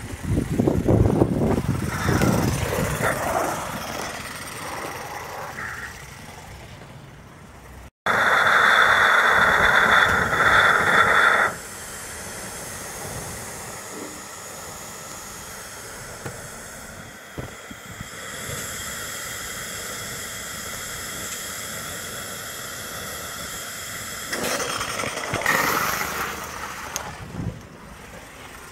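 Gauge 1 gas-fired live steam tank locomotive hissing. About eight seconds in comes a loud hiss with a steady whistling tone lasting a few seconds, then a softer steady hiss. A rough rushing noise is heard in the first few seconds and again near the end.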